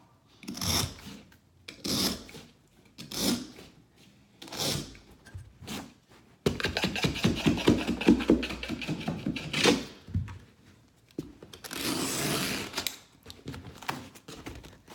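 Carpet being worked by hand with carpet tools: a run of separate scraping strokes, then a few seconds of fast, dense scratching and clicking, then one longer scrape.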